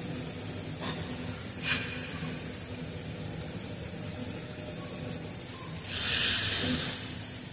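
A Quran reciter drawing breath into a handheld microphone in a pause between verses. There is a short breath a couple of seconds in, then a louder, hissing breath lasting about a second near the end, over a steady low hum from the sound system.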